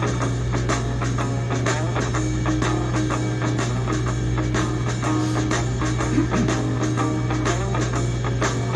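Background music with a steady beat, playing under an outro end screen.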